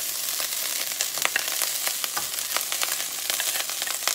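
Garlic fried rice frying in oil in a stainless steel pan: a steady sizzle with many scattered crackles and clicks, as a metal spatula stirs and scrapes it.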